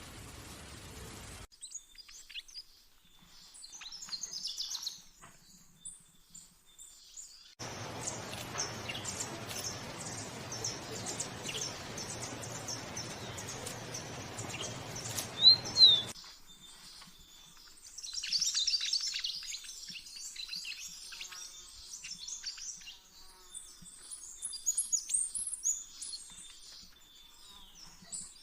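Small songbirds chirping and twittering in quick, high-pitched calls, with a loudest pair of sharp falling chirps about halfway. A steady hiss covers the start and the middle third.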